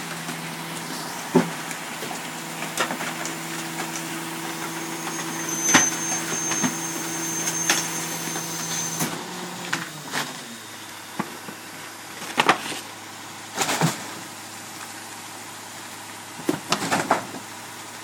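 Rear-loading Loadmaster garbage truck running: a steady engine hum with a thin high whine for the first half, which drops to a lower idle about nine to ten seconds in. Debris knocks and bangs into the hopper several times, most loudly in a cluster near the end.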